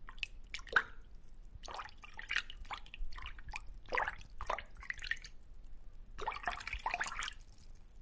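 Water dripping and bubbling in irregular drops and splats over a low steady hum, in an aquarium tank.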